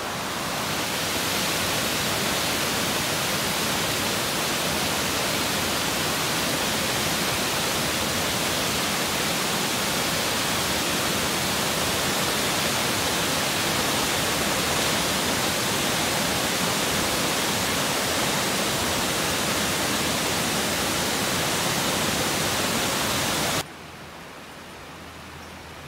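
Waterfall pouring over a curved weir into a pool below: a steady, loud rush of falling water. It cuts off abruptly near the end, leaving a much quieter steady hiss.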